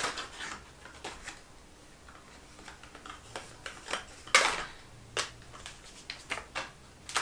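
A small cardboard box being opened and its insert pulled out by hand: scattered clicks, taps and rustles of cardboard and paper packaging, with a louder scraping rustle about four seconds in.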